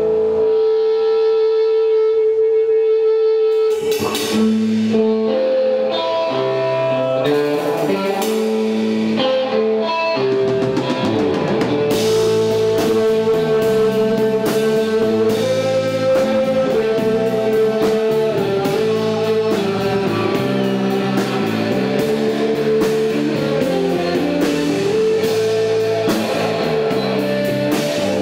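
Rock band playing: a held electric guitar note rings out at first, then bass and drum kit come in about four seconds in, with cymbals joining near the middle and the full band carrying on.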